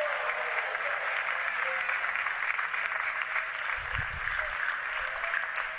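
A crowd applauding: many hands clapping in a steady, dense patter, with a brief low thud about four seconds in.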